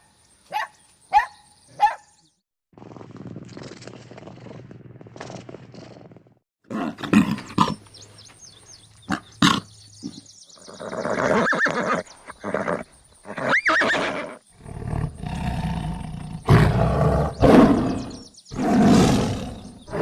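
A series of animal calls: a few short barks in the first two seconds, a low steady rumble, then from about seven seconds on a run of long, loud roars and growls.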